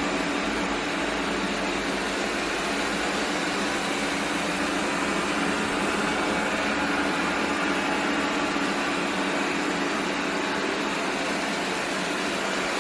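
Anker eufy RoboVac 25C robot vacuum running steadily in circle mode: an even whirring of its suction fan and brushes with a steady low hum.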